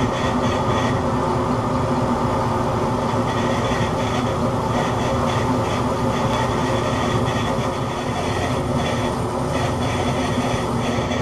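Metal lathe running steadily in back gear, its gear train humming and clattering while a parting tool cuts off a small turned part held in a collet.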